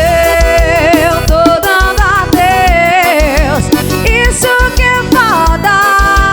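Forró band music playing an instrumental passage between sung lines: a steady bass-drum beat under a sustained, wavering melody line.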